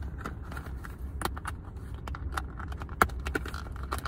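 Scattered clicks and crackles of a clear plastic takeout container being handled, with one sharper click about three seconds in, over the steady low hum of a car cabin.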